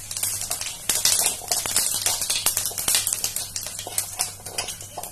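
Cumin seeds crackling and popping in hot oil in a pan: a dense run of sharp pops that thins out near the end as the seeds brown for the tempering.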